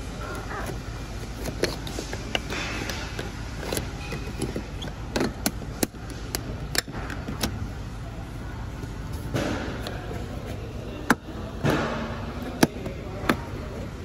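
Plastic door-sill trim on a BMW i3 being pried and worked loose with a plastic trim tool: scattered sharp clicks and snaps from the trim and its clips, with a few short spells of plastic scraping. A steady low hum runs underneath.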